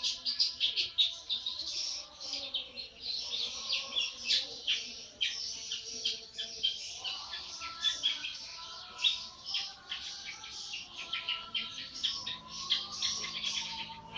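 Young long-tailed shrike (cendet), about 80 days old, singing continuously: a rapid chattering string of sharp, high notes, several a second.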